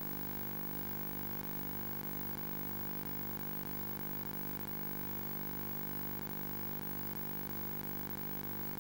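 Steady electronic hum and buzz made of many fixed tones, unchanging throughout, with no live sound on top: the signature of a faulty audio track rather than anything in the scene.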